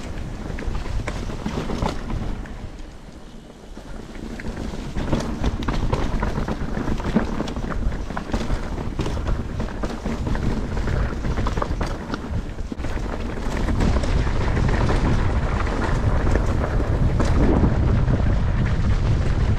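Wind buffeting the microphone over the rolling noise of a mountain bike being ridden, with scattered clicks and rattles from the bike; the wind rush eases briefly a few seconds in and grows louder about two-thirds of the way through.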